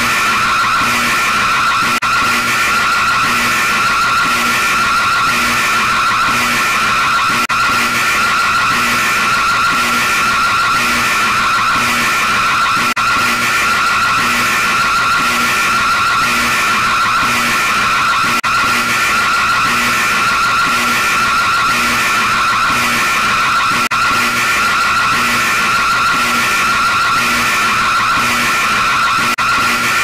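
Emergency alert system style alarm: a loud, harsh, steady screeching tone with a regular pulse running through it.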